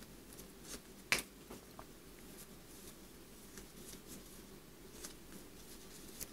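Faint handling of a small stack of paper moon stickers: light paper ticks and clicks, with one sharper click about a second in.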